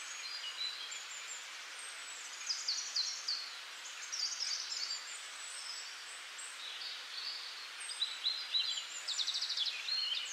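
Small birds chirping and twittering over a steady hiss, the calls coming in scattered groups, busier in the second half, with a quick trill near the end.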